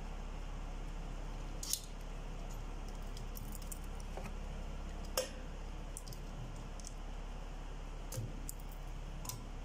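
A few sharp metal clicks and clinks from a valve spring compressor and valve springs on a GMC V8 cylinder head as the springs are fitted, two of them louder, over a steady low hum.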